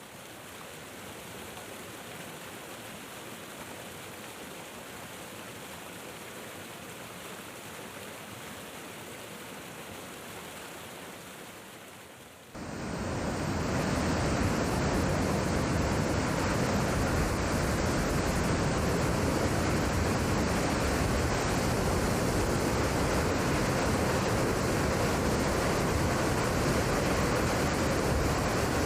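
Running water, a steady rushing. About twelve seconds in it cuts suddenly to a louder, fuller rush of water.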